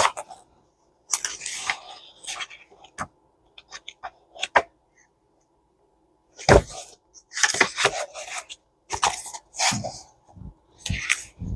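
Paper schematic sheets being handled and flipped through, in irregular bursts of rustling with a few sharp ticks and a short lull in between.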